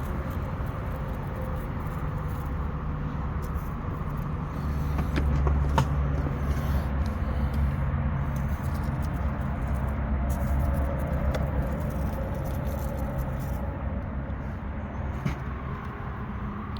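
Steady low engine-like rumble, growing louder about four seconds in and easing back after about eleven seconds, with a few faint clicks.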